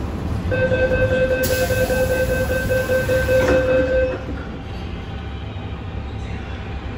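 MTR M-train door-closing warning tone sounding for about three and a half seconds while the car's doors slide shut with a hiss, ending in a knock as the door leaves meet. Afterwards only the car's steady low hum remains.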